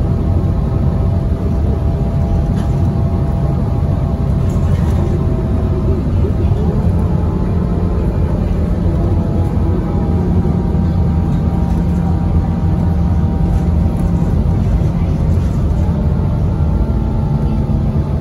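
Steady running noise heard from inside a 2017 Gillig BRT transit bus on the move: engine and drivetrain with road rumble, the engine note drifting slowly up and down as speed changes, and a few light rattles.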